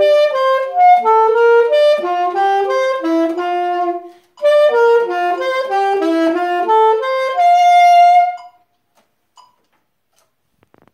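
Alto saxophone playing a quick run of single notes, with a short break for breath about four seconds in, then a second run that ends on a long held note, cut off about eight and a half seconds in.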